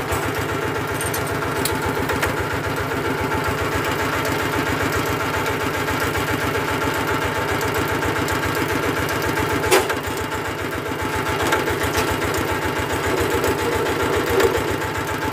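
Single-cylinder diesel engine of a Kronos quick rotary hand tractor idling steadily with an even firing beat. A brief sharp click about ten seconds in.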